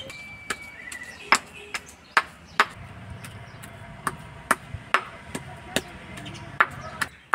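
Stone pestle pounding raw chicken pieces in a stone mortar: sharp knocks, roughly two a second and unevenly spaced, as the meat is ground into momo filling.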